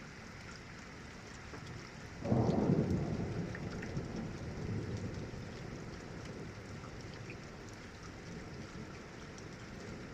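Steady rain falling, with a roll of distant thunder breaking in about two seconds in and rumbling away over several seconds.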